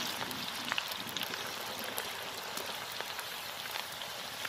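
Freshly added potato slices deep-frying in a large karahi of oil, the oil foaming white: a steady dense sizzle with scattered small pops.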